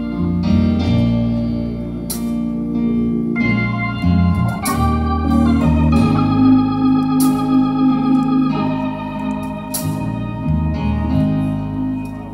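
Organ playing held gospel chords over a stepping bass line, the chords changing every second or two, with a sharp crash about every two and a half seconds.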